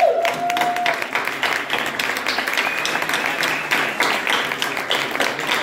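Audience applauding steadily, a dense patter of many hands clapping, with a voice calling out briefly at the very start.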